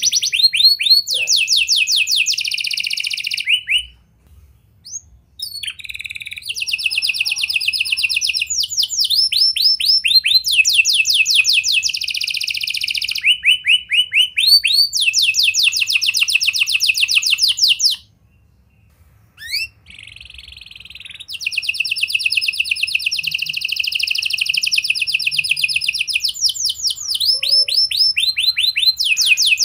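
A red-factor domestic canary singing in long phrases of rapid repeated notes, each run lasting a second or two and shifting in pitch. The song breaks off briefly about four seconds in and again around eighteen seconds in.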